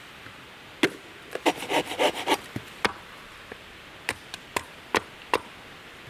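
Kindling being split from a block of wood on a chopping block: a string of sharp knocks as a blade is driven into the wood, with a quick run of cracking and splitting about a second and a half in.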